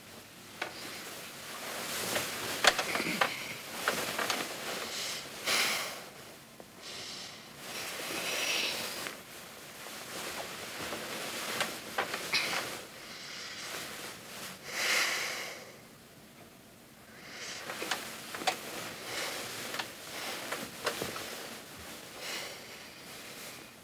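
Bedding rustling in repeated swells as a person shifts and turns under a duvet in bed, with scattered small clicks and creaks.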